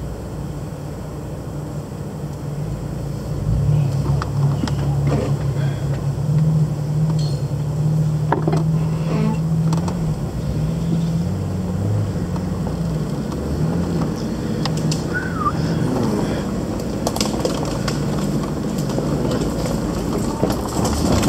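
Jeep Wrangler Unlimited Rubicon engine running at low crawling speed on a rocky trail, heard from inside the cab; it gets louder about three and a half seconds in and holds there, with a few short knocks along the way.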